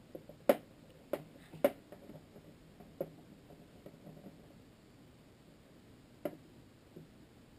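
Scattered sharp clicks and taps of a Phillips screwdriver and small metal and plastic parts being handled while a screw is taken out of a Hi-Capa gas airsoft pistol; about six separate clicks, the loudest two in the first two seconds.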